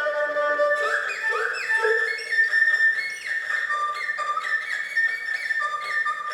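Erhu played high on the neck, imitating birdsong: about a second in, steady notes give way to quick swooping chirps, followed by high held notes broken by short slides.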